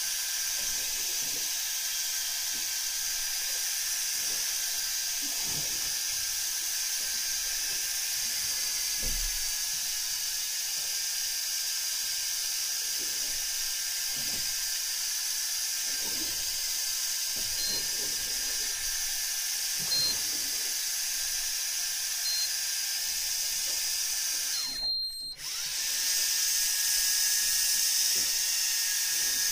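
Electric fishing reel's motor running with a steady whir as it winds in line, with a few short high beeps about two seconds apart. The sound cuts out briefly near the end and comes back louder.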